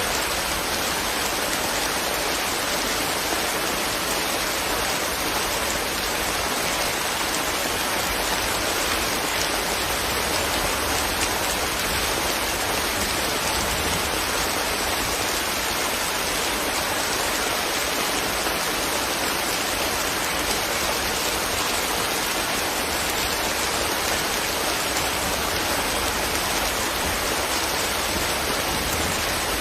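Steady rain falling and pattering on leaves, an even hiss with no breaks.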